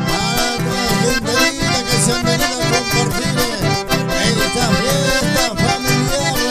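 Live instrumental music: two button accordions playing a lively melody together over acoustic guitar, with a steady, even beat in the low notes.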